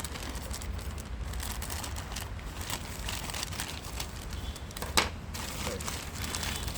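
Packaging being handled: irregular rustling and crinkling, with one sharp click about five seconds in.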